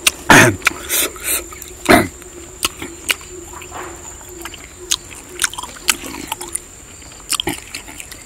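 Close-up eating sounds: a man chewing and slurping a saucy chilli dish, with loud wet smacks and slurps in the first two seconds and softer chewing clicks after.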